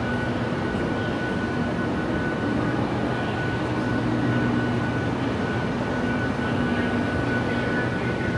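Steady rumble of an underground metro platform, from air handling and a metro train standing at the platform with its doors open, with a thin steady high whine and a low hum on top.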